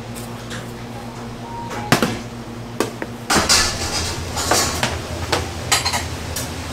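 Stainless steel bowls and utensils clinking and knocking on a steel counter as bibimbap toppings are placed in the bowls, in irregular sharp knocks with the loudest just before two seconds in. A steady low kitchen hum runs underneath and grows louder about three seconds in.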